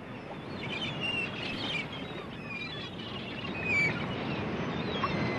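Birds calling in short chirps over a steady rushing noise of water, a sea ambience that fades in.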